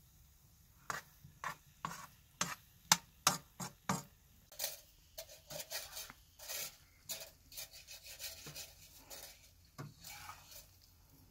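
A metal slotted spoon knocking and scraping against a large shallow metal pan of cooked vegetables as the food is stirred and scooped out. First comes a run of sharp taps, about two a second, then quicker, rougher scraping strokes.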